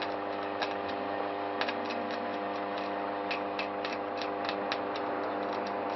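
Steady electrical hum of a distribution transformer, several pitches stacked on one low drone, with a dozen or so irregular sharp clicks through the middle seconds.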